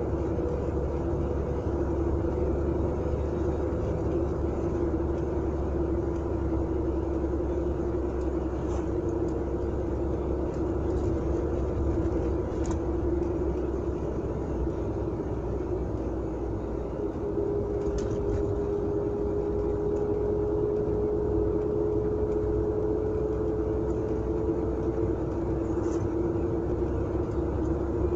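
Volga GAZ-3102 sedan driving along a road at a steady pace: a steady engine drone over low road rumble, the engine note creeping slightly higher about two-thirds of the way through, with a few faint clicks.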